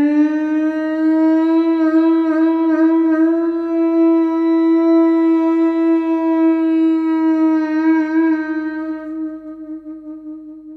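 A single long note blown on a wind instrument. It rises slightly in pitch at the start, is held steady for about ten seconds, and fades away near the end.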